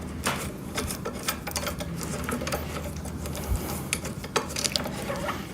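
Light, irregular clicks and clinks of small metal parts being handled and fitted together during hand assembly of the chipper's wheel frame.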